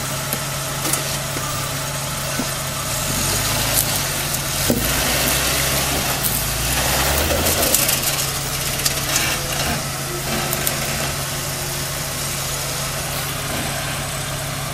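Jeep Cherokee XJ engine running at low revs as it crawls over rocks, pulling harder for a few seconds in the middle before settling back to a steady idle-like drone, with scattered crunches and clicks from the tyres on rock.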